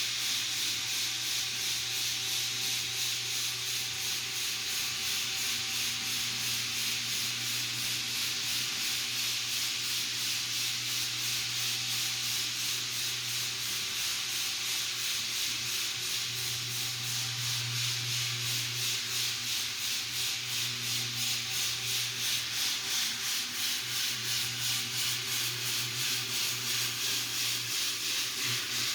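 Floor sander running steadily on a hardwood floor: a continuous abrasive hiss over a low motor hum, with a fast, even pulsing in loudness.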